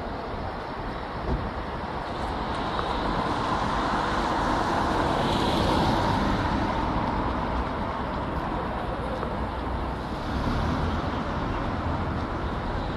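Road traffic noise from a line of cars crawling past in a traffic jam: engines and tyres making a steady rumble that grows louder for a few seconds near the middle.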